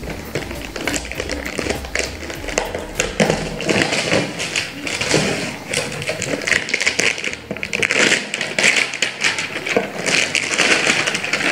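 Packing tape being picked at and peeled from a cardboard parcel, with the box handled: an irregular run of crackling, scratching and tearing.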